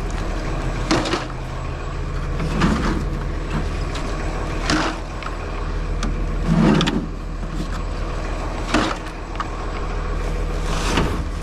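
Steady low hum of an idling delivery truck, with a short knock or clunk about every two seconds.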